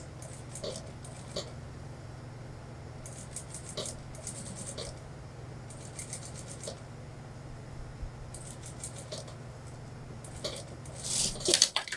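Industrial lockstitch sewing machine stitching suit-trouser fabric: a steady motor hum with repeated runs of quick needle clicks. It is loudest near the end and then stops suddenly.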